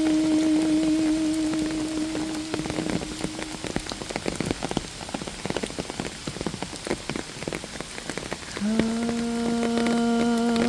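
Rain pattering steadily, with many separate drops ticking. A long held note of the hymn melody fades out in the first few seconds, and a new, lower held note starts near the end.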